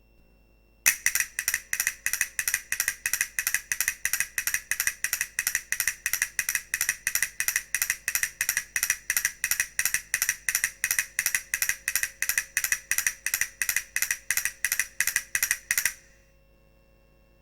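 A sound-effect of rapid, evenly spaced mechanical clicking, a little over three clicks a second, starting suddenly about a second in and stopping abruptly near the end.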